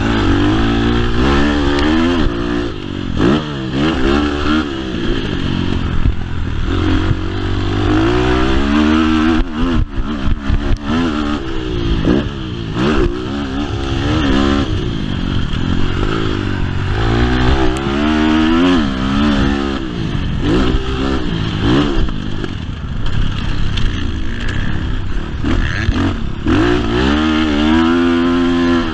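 BHR 300 R motocross bike engine, heard from on board, revving up and falling back again and again as the bike is ridden round the track. A few sharp knocks come through around the middle.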